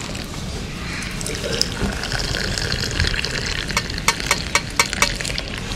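Milk tea (chai) poured in a thin stream from a height into ceramic cups, a steady splashing fill that froths the tea. From about two-thirds of the way in, a run of sharp clinks sounds over the pouring.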